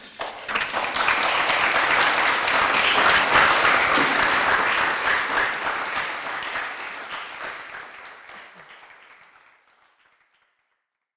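Audience applauding: dense clapping that swells in the first second or so, holds, then fades out over the last few seconds.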